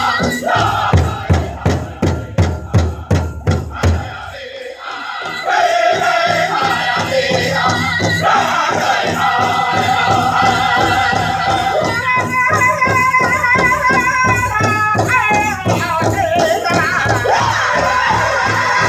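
Powwow drum group singing a chicken dance contest song over a big drum. In the first few seconds the drum is struck in a run of hard, loud beats about three a second. A brief lull follows about four to five seconds in, then the singing and a steady drumbeat resume.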